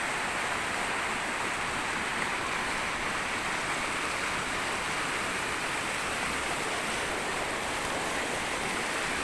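River water running with a steady rushing hiss.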